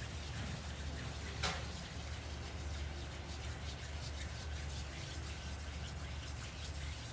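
A person's hands rubbing palm against palm, a repeated dry rubbing, with one sharp click about one and a half seconds in, over a steady low hum.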